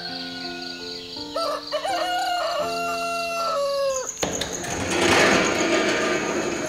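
Instrumental background music, with a rooster crowing over it from about a second in, its long call ending in a falling note. About four seconds in, a loud swell of storm noise, heavy rain with a thunder rumble, takes over and eases off by the end.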